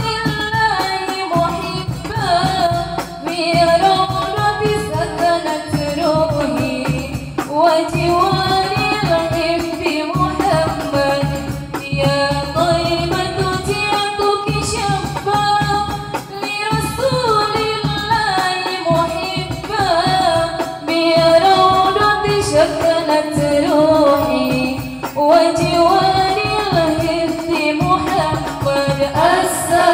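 A woman singing solo into a microphone, amplified, in long ornamented phrases with gliding, wavering pitch.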